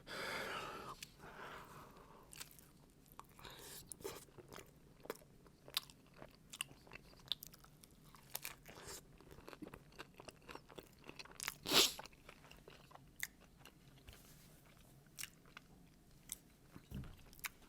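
A person chewing and biting crunchy Taco Bell food: irregular crisp crunches and mouth sounds, with one louder crunch about twelve seconds in.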